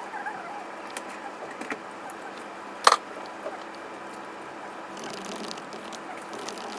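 Steady background noise with scattered light clicks and one sharp tap about three seconds in.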